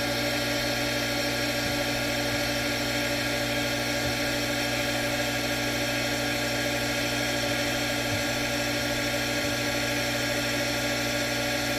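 Well pump motor running with a steady hum, struggling to pick up water and build flow after being primed.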